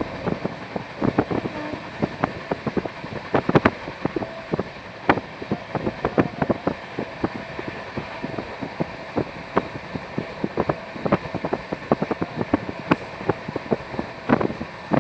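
Train running at speed: a steady running noise with many sharp, irregular clacks and rattles, several a second.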